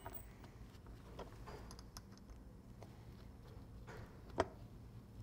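Faint, scattered light clicks and taps of gloved hands handling nails and the metal splice template on the rubber belt, a few in all, the sharpest about four seconds in.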